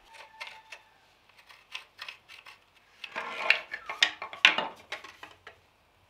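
Deer antlers knocking and clattering against one another and the concrete floor as they are picked up and sorted by hand: a scatter of hard knocks, busiest about three to five seconds in.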